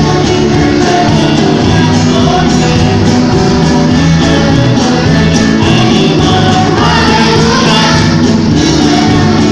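Children's band playing a song on electric bass, acoustic guitars, violins, drums and keyboard, with a group of girls singing together into microphones. The music is loud and amplified, and the voices come through more clearly in the second half.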